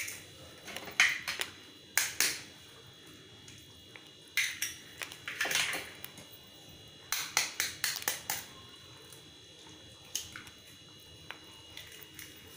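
Raw eggs being cracked open one after another: sharp taps and cracks of eggshell in small groups, with a cluster of quick taps around the middle.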